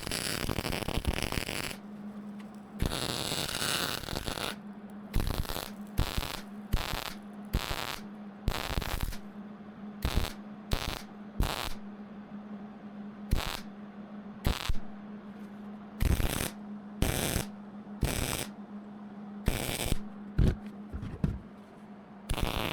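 Electric welder laying short welds to build up broken-off bolt studs and weld nuts onto them, the arc crackling in about twenty short, irregular bursts, one longer run near the start, over a steady low hum.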